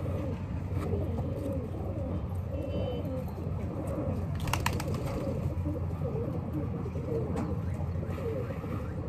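Domestic pigeons cooing, a run of low wavering coos over a steady low background hum. A short burst of sharp clicks comes about halfway through.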